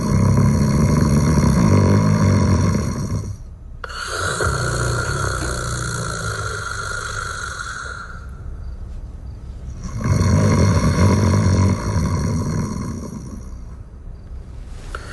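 A person snoring in slow, regular breaths: a loud, low snore lasting about three seconds at the start and another about ten seconds in, each followed by a softer breath out.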